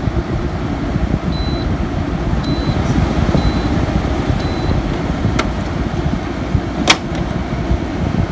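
Frigidaire 8,000 BTU window air conditioner running and cooling: a steady, heavy low rumble of fan and compressor, recorded close up. A sharp click comes about seven seconds in.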